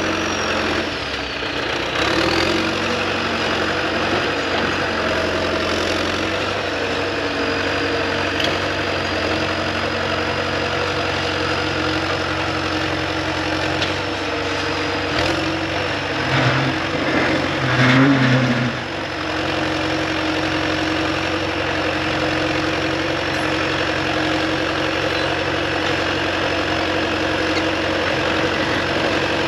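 Heavy diesel excavator engine running steadily, with a thin high whine over it. It swells louder for a few seconds past the middle, then settles back.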